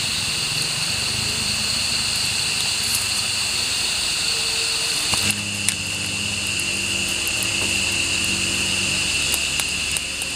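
Steady high-pitched drone of a forest insect chorus, held on a few constant pitches. About five seconds in, a low steady hum joins it.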